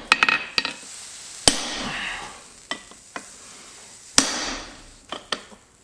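Hammer blows on a handled blacksmith's top tool held against red-hot steel on the anvil. A cluster of quick knocks comes at the start, then two hard strikes about a second and a half and about four seconds in, with lighter knocks between.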